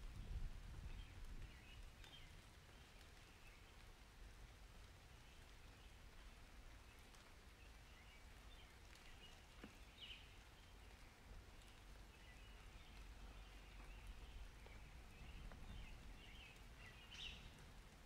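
Faint rain ambience: a soft, steady hiss with scattered short high chirps, and a low rumble that dies away over the first couple of seconds.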